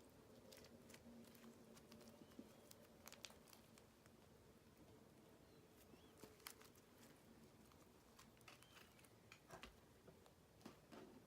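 Faint scattered clicks and small sticky pops of slime being squeezed and pulled by hand, over a low steady hum.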